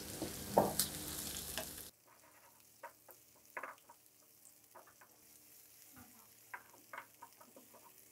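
Onion, capsicum and chillies stir-frying in hot oil in a nonstick frying pan, sizzling while a spatula stirs them. About two seconds in the sizzle cuts off suddenly, leaving only short scrapes and knocks of the spatula against the pan.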